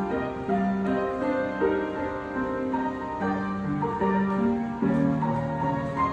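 Piano playing a melody over held chords.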